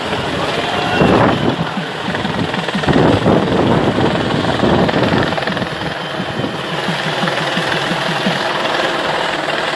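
Helicopter overhead, its rotor chopping in a fast steady beat, with louder rushing swells about a second in and again around three to five seconds.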